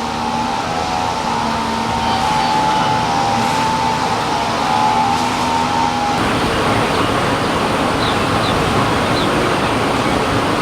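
Disturbed honey bee colony buzzing loudly as its comb is pulled from a bucket: a steady hum with several wavering higher tones from bees flying close by. About six seconds in it turns rougher and noisier.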